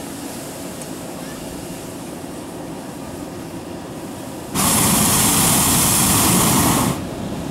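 Hot-air balloon's propane burner fires one loud blast of a little over two seconds into the envelope as it is hot-inflated on the ground. The blast starts about four and a half seconds in and cuts off sharply, over the steady noise of the inflation fans.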